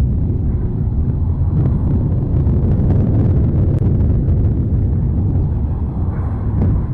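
Continuous low rumble of Mount Etna erupting, a dense steady roar with no distinct blasts.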